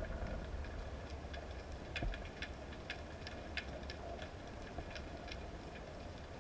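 Underwater ambience on the diver's camera: a steady low rumble of water with irregular sharp clicks and crackles scattered through it, most of them in the middle few seconds.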